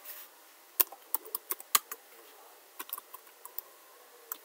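Computer keyboard keys clicking as a command is typed: irregular runs of keystrokes with a pause of about a second near the middle.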